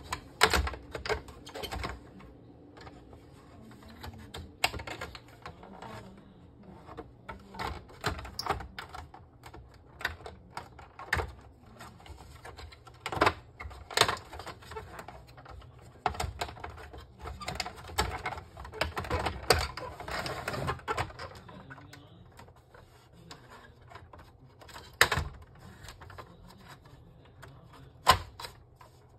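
Irregular clicks, taps and knocks of a screwdriver against the plastic parts of an opened Epson L3150 inkjet printer as it is worked on by hand. There is a longer scraping rustle about twenty seconds in and a louder knock near the end as the printer is tipped over.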